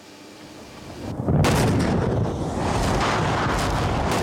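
A loud, continuous explosive rumble starts about a second in, builds quickly and carries on with crackles all through it.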